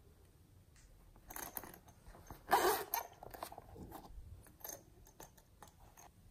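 A zip pouch being unzipped: a short rasp about a second in, then a longer, louder rasp about two and a half seconds in, followed by light clicks of handling.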